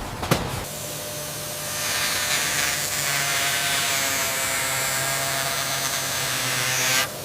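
A click, then a small electric power tool's motor whirring steadily for about six seconds before stopping abruptly.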